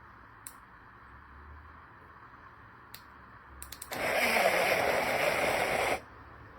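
Portable mini blender: a few clicks, then it runs for about two seconds with a loud, even whirring noise and stops abruptly.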